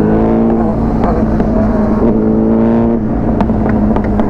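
Motorcycle engine running as the bike rides along, its pitch falling in the first second as it slows and then holding nearly steady, with a steady low wind rumble on the microphone.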